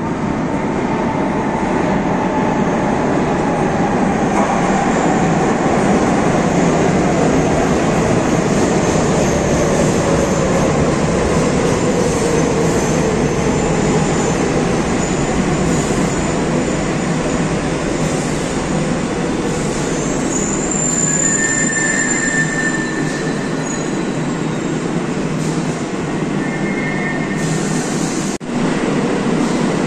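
Madrid Metro series 5000 train running into an underground station platform. Its motor whine falls steadily in pitch as it slows over a continuous rail rumble, and high-pitched squeals come in about two-thirds of the way through as it draws to a halt.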